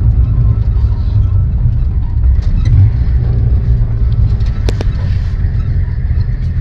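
Steady low engine and tyre rumble inside a car's cabin while driving on a packed-snow road, with one sharp knock about two-thirds of the way through.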